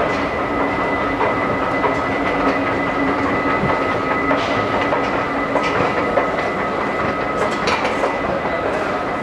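Escalator machinery running: a steady mechanical rumble with a constant high whine and light rattling of the moving steps.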